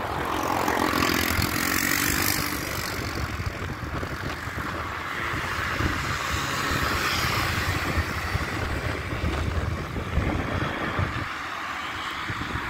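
Cars passing on a busy city street, their tyre and engine noise swelling and fading twice, with wind buffeting the microphone.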